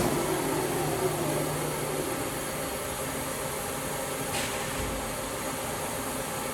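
Haas HL-6 CNC lathe running: a steady mechanical hum with faint steady tones. A click right at the start and a brief hiss about four seconds in.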